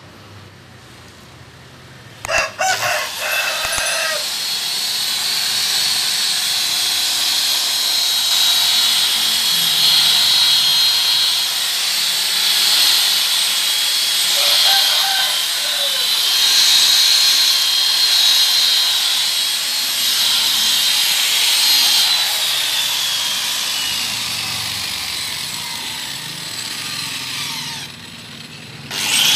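Electric rotary car polisher running with a steady high whine as it buffs compound into the paint of a car door. It starts suddenly a couple of seconds in and drops away briefly near the end.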